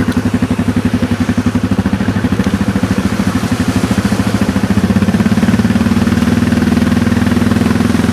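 ATV engine running with a steady pulsing beat. About five seconds in it gets a little louder and higher, as the machine picks up speed.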